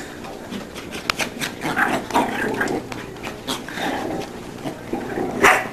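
A dog making noises in irregular short bursts, with a few sharp clicks, and a louder burst near the end.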